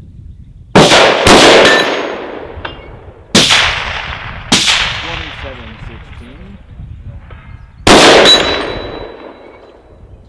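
Semi-automatic 7.62x51 (.308) rifle firing five shots of 145-grain M80 ball: five sharp reports, each trailing off in a long echo. The first two come about half a second apart, the next two about a second apart, and the last a few seconds later.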